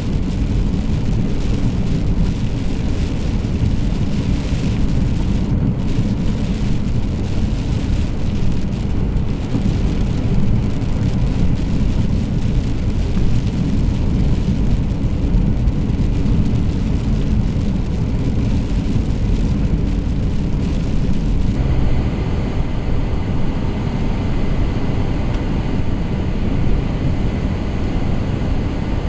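Steady road and engine noise heard from inside a moving car, a deep rumble with a fainter hiss above it; the hiss drops away suddenly about three quarters of the way through.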